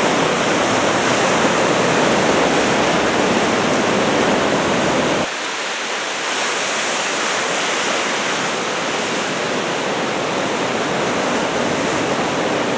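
Steady rush of heavy surf breaking at the shore under typhoon swell. About five seconds in, the deep low rumble cuts out abruptly and the sound turns a little quieter and thinner.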